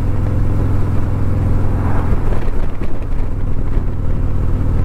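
Harley-Davidson Street Glide's Milwaukee-Eight V-twin running steadily at highway speed, with wind rushing over the microphone.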